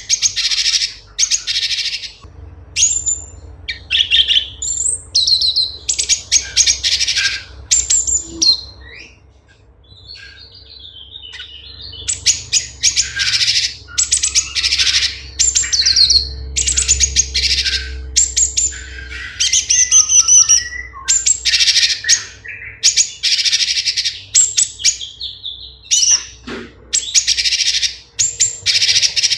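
Cucak cungkok, a leafbird, singing: loud, rapid phrases of sharp chirps and whistled notes in quick bursts, with a softer twittering stretch about ten seconds in.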